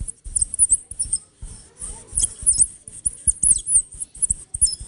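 A piece of polystyrene rubbed on a pane of tinted glass, making quick runs of high, chirping squeaks over soft low knocks. It is a foley trick that listeners take for small birds or squeaking mice.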